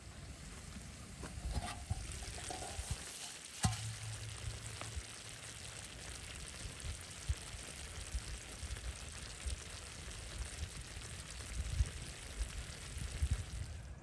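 Large metal pot of stuffed peppers, tomatoes and potatoes simmering and sizzling over a wood fire: a steady hiss with small crackles, and a single sharp knock about three and a half seconds in.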